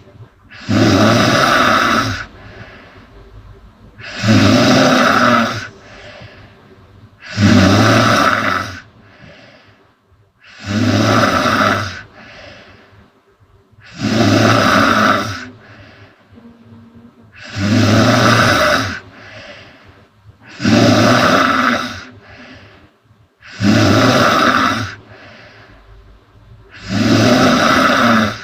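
A sleeping woman snoring loudly: nine long snores about every three and a half seconds, with quieter breathing between them.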